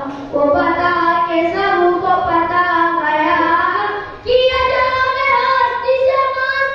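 A boy singing a naat sharif (an Urdu devotional poem in praise of the Prophet) solo into a microphone, with no instruments, in long held, ornamented notes. There is a short break for breath about four seconds in, then he moves up to a higher held note.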